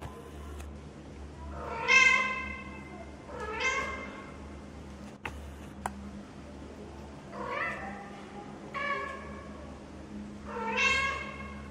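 Domestic cat meowing: five separate meows a second or more apart, the first the loudest.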